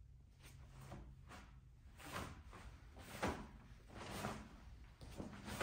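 Barefoot taekwondo form movements: several sharp thumps and snaps about a second apart, from bare feet landing on the mat and the dobok snapping with each technique.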